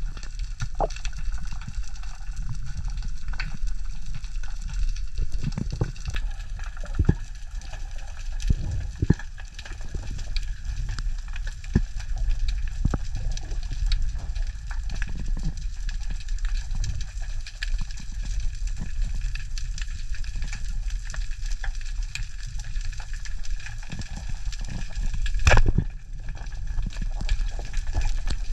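Underwater sound heard through a camera housing: a steady low rumble of water with scattered crackling clicks, then, near the end, one sharp loud crack as a speargun fires its shaft at a trevally.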